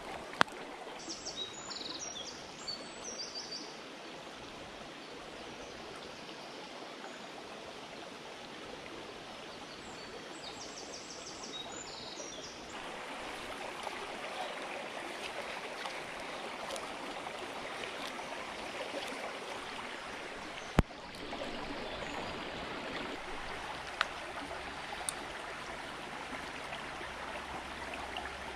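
Woodland stream running steadily over rocks. Short high bird calls come in twice, near the start and about ten seconds in, and a few sharp clicks stand out.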